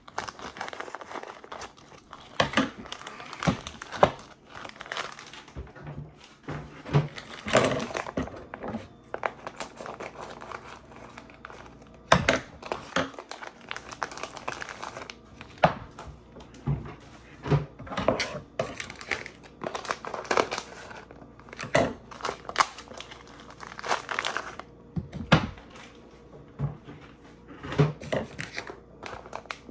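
Plastic vacuum-seal bags crinkling and rustling, with irregular sharp snaps, as they are cut open with scissors and peeled off salmon fillets.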